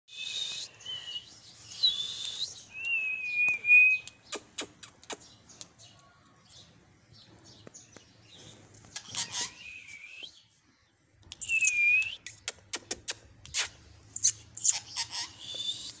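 Rose-ringed parakeet giving several shrill calls that bend in pitch, one longer wavering call near the start. The calls come in two groups with a quiet gap of a few seconds between them, and runs of sharp clicks fall between the calls.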